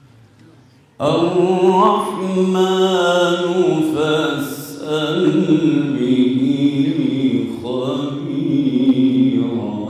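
A man's voice begins a slow, melodic religious recitation about a second in, holding long notes and ornamenting them with rising and falling runs.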